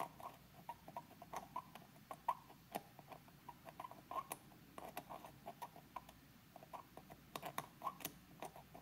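X-Acto hobby knife blade scraping the solder mask off a circuit board trace, heard as faint, irregular little scratches and ticks, several a second. The scraping is exposing the copper trace so a wire can be soldered to it.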